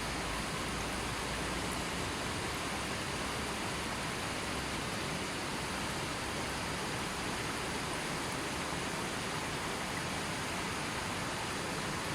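Gently flowing river: a steady, even rush of water with no other sounds.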